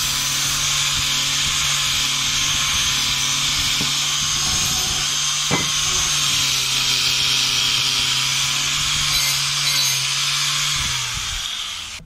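Angle grinder with a crimped copper-wire cup brush scrubbing rust off a steel threaded rod: a steady motor hum under a harsh wire hiss. Near the end the grinder is switched off and winds down.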